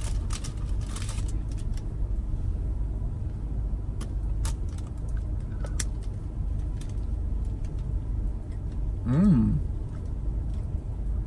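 Steady low rumble of a car engine idling, heard inside the cabin, with a paper bag crinkling in the first second and a few small clicks. About nine seconds in comes a short hummed 'mm' while chewing a donut.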